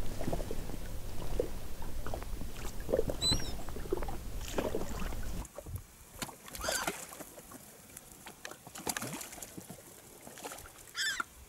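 Low wind rumble over a small inflatable boat, with light knocks and a brief high bird chirp about three seconds in. Past the middle the rumble drops away, and gulls swooping to the water for bread give a few soft swishes and a short call near the end.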